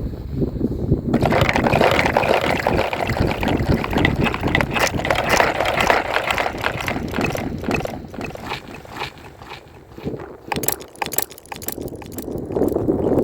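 Water splashing and gurgling, loud and irregular, getting quieter and more broken in the second half.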